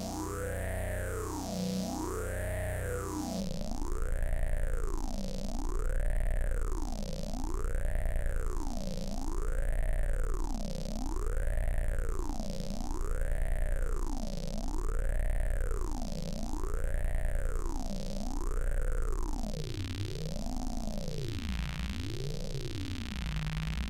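Synthesized tone from an AudioMulch patch, sweeping up and down in pitch like a slow siren, about one rise and fall every 1.7 seconds, over a steady low bass drone. Near the end the sweeps dip lower and shallower.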